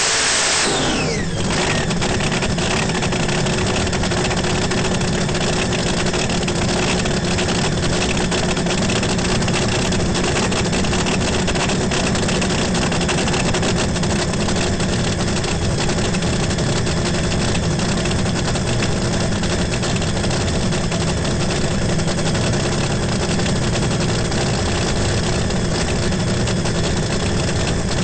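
An engine running steadily, with a constant dense roar and a steady hum; a brighter hiss gives way to it about a second in.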